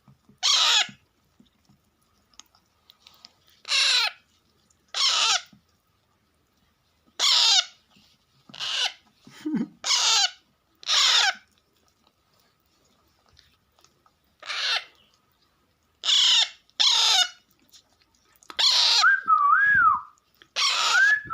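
Baby Alexandrine parakeet chicks giving harsh, rasping begging calls, about a dozen short calls that fall in pitch, repeated every second or two: hungry chicks begging for food. Near the end a wavering whistle rises and falls over about two seconds.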